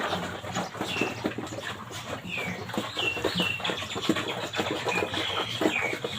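A pig eating, chewing and smacking its food in quick, irregular wet clicks. Short, high, falling bird chirps come in several times over it.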